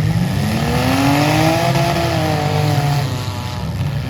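Demolition derby car engine revving, its pitch rising over about two seconds and then easing off, over the steady lower running of other engines.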